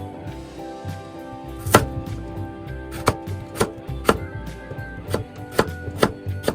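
A kitchen knife chopping on a cutting board: about seven separate, sharp strikes at uneven spacing, with steady instrumental music underneath.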